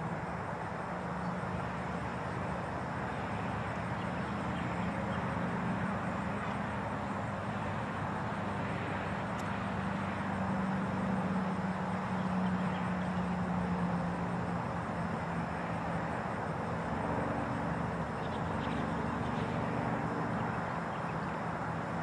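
Steady outdoor traffic noise from a highway, with a low drone that swells and fades around the middle.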